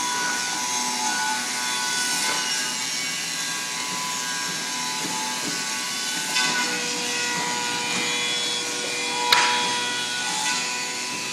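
Woodworking machinery running steadily, with a whine of several steady tones over a noisy hiss. A single sharp bang comes near the end.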